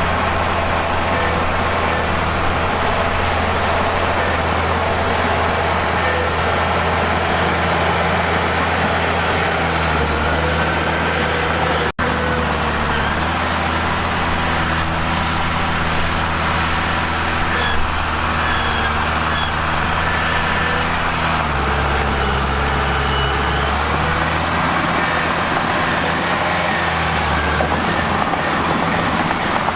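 Mitsubishi bulldozer's diesel engine running steadily under load, its note stepping up and down several times as the load changes. The sound drops out for an instant about twelve seconds in.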